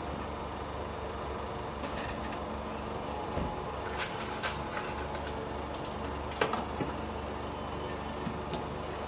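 Claw machine running through a grab: a steady mechanical hum as the claw lifts and travels, with a string of sharp clicks and knocks in the middle.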